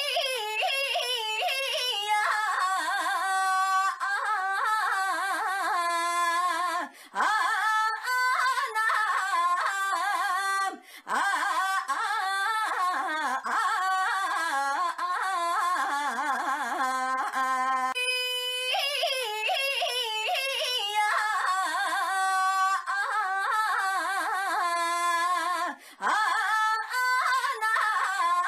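A young woman's high-pitched voice crying out a drawn-out, wavering, sing-song 'ainyaaa', repeated again and again with a few brief gaps.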